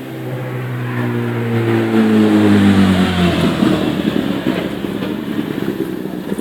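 A motor vehicle's engine going past, its pitch falling slowly as it grows louder, then fading into a rough rumble.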